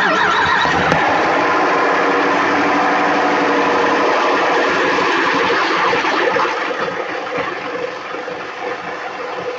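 Engine of a 2012 truck running just after a cold start, having sat overnight without being started. Steady and fairly loud, easing down somewhat in level about six seconds in.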